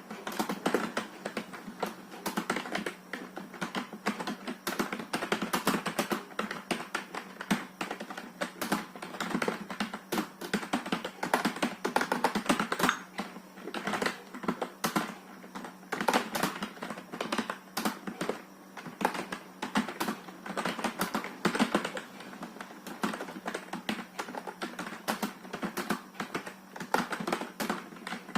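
Touch typing on a computer keyboard during a typing test at about 32 words a minute: a continuous, uneven run of key clicks.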